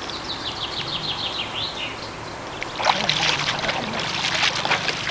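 Water splashing as a large carp is let go by hand into a pond and kicks free, starting about halfway through. Before it comes a quick run of high chirps.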